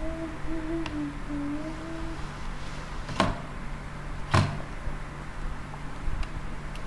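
A person humming a short wavering tune for about two seconds, then two sharp clicks about a second apart, the second louder, over a steady low hum.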